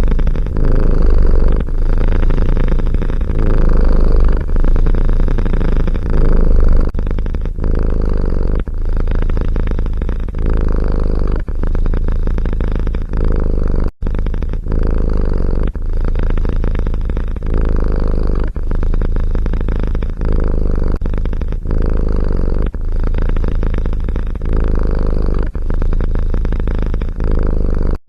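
Domestic cat purring close to the microphone: a loud, low rumble that swells and eases in a steady rhythm, about once every second or so. It breaks off for an instant about halfway through.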